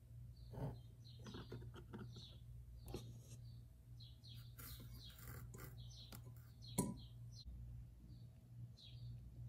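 Light clicks and taps of a tiny metal pot being lifted and handled. A sharp clink about seven seconds in is the pot being set down on a miniature clay stove. Faint high chirps recur throughout.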